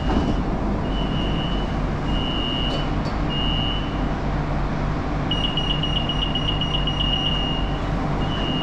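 Door warning beeps at an elevated electric-train station: a high beep repeating about once a second, changing for a couple of seconds past the middle to a rapid pulsing beep, then back to single beeps, over the train's steady low hum.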